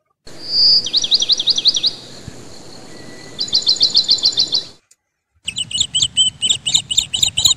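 Bird chirping: a quick run of repeated high chirps lasting about four seconds, then a brief break and a second run of rapid chirps.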